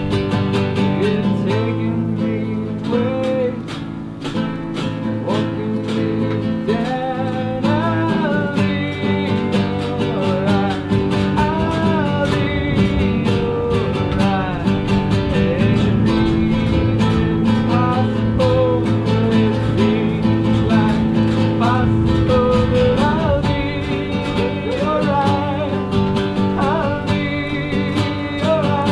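Background music led by acoustic guitar, with a melody line that slides and wavers in pitch over it.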